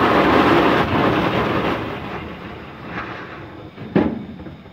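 Steam railway noise, a dense rush that fades away over the first two seconds, then a single sharp metallic bang about four seconds in.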